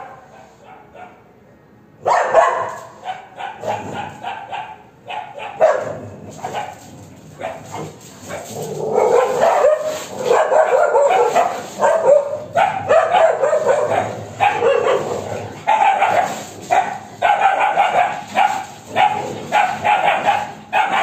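A pack of street dogs fighting: a jumble of barks and yelps that breaks out about two seconds in and becomes louder and nearly continuous from about eight seconds on.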